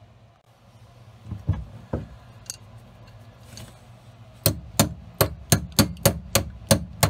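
Bolts being tapped down through a camper floor and frame with a hand tool used as a hammer. A few separate knocks come first. From about four and a half seconds in there is a steady run of sharp strikes on the stainless steel bolt heads, about three a second.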